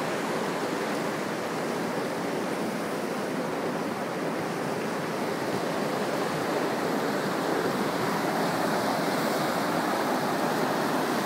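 Volcanic fumarole steam vents hissing and rushing steadily as steam and hot water escape from the ground, the vents running vigorously.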